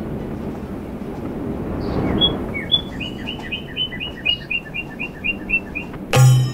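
A bird calling with a fast run of short, repeated chirps, about four a second, over a steady background hiss that swells about two seconds in. A sudden loud low thump comes near the end.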